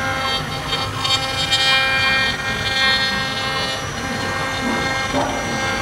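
Rhino R-1325 CNC router spindle running with a steady high whine while its small bit carves a wooden cylinder turning on the rotary axis. The rasp of the cut grows louder from about one second in and eases off after about four seconds.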